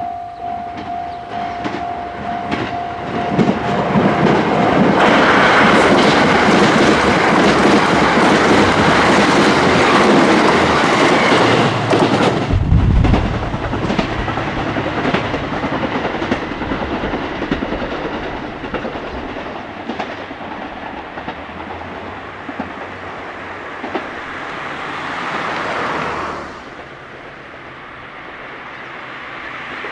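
Level crossing warning bell ringing in quick, even pulses, then the Hamakaze limited express, a KiHa 189 diesel multiple unit, passes at speed: a loud rush with wheels clacking over the rail joints. The noise fades away near the end.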